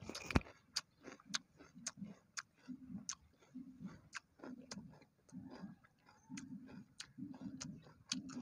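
A person chewing food with the mouth closed, close to the microphone: a steady rhythm of about two chews a second, with small sharp crunching clicks, one louder crunch about half a second in.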